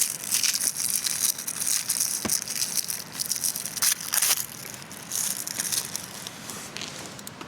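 Irregular crinkling and crackling of something being handled close by, with a single sharp knock about two seconds in. It eases off near the end.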